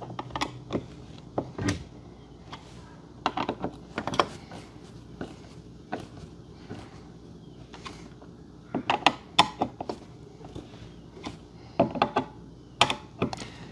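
Scattered clicks and knocks from a deadbolt lock's metal parts and screws being retightened by hand with a screwdriver on a door, coming in several short clusters.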